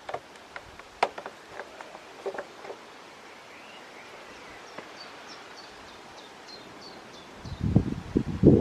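Outdoor ambience: scattered light clicks and taps in the first few seconds, a run of faint short high chirps in the middle, then a loud rumbling burst of wind on the microphone near the end.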